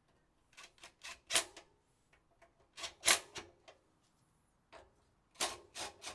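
Socket ratchet clicking in short runs of a few clicks each, tightening the air cleaner housing's bolt and 6mm nuts on a Honda GX160 engine.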